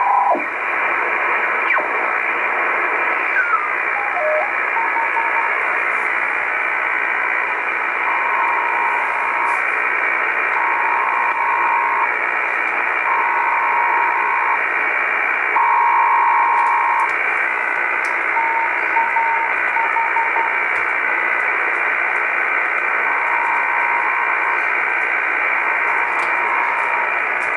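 Shortwave communications receiver in upper sideband, hissing with band noise; a brief falling whistle as it is tuned, then a two-tone digital data signal keyed on and off in repeated bursts about a second and a half long. The signal is a maritime data transmission, identified as TAH Istanbul Radio.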